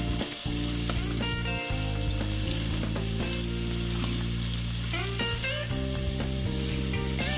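Tap water running into a stainless-steel sink while a brush scrubs around the food waste disposal's rubber splash guard, a steady hiss. Background music with held chords plays underneath.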